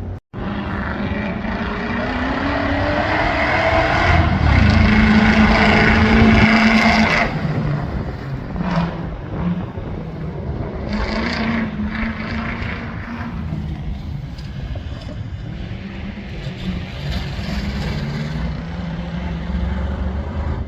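Off-road competition safari racing vehicle's engine running hard under varying throttle, rising in pitch and loudest from about four to seven seconds in, then falling away and revving up and down. A brief cut to silence comes just after the start.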